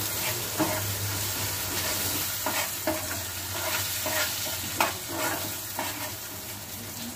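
Peanut chutney being stirred into a hot tadka (mustard seeds, urad dal and curry leaves fried in oil) in a pan: a steady sizzle, with the stirring utensil knocking and scraping against the pan a few times.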